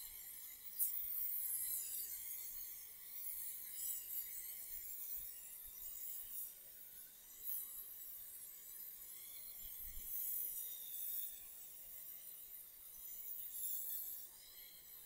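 Aerosol can of Raptor spray-on bed liner hissing as it sprays, in long passes that swell and ease.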